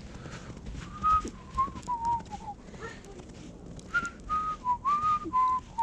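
A person whistling a tune: a string of short notes that starts about a second in, breaks off briefly in the middle, then picks up again. Faint clicks sound underneath.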